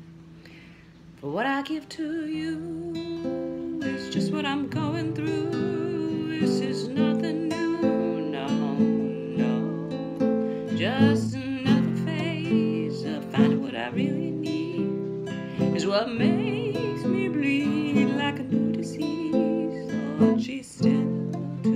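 Acoustic guitar strummed and picked, coming in about a second in, with a woman singing over it.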